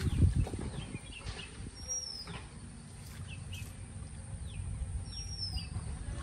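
Water sloshing and splashing around people wading in a pond, loudest in a burst of splashing right at the start. A bird calls twice, about three seconds apart, each a short high whistle that slurs downward.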